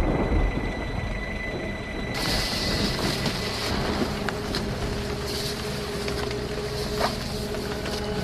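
Steady rain falling on and around a car, with a low vehicle rumble underneath. A fading low rumble opens it, and the rain hiss thickens about two seconds in. Faint sustained music tones begin near the end.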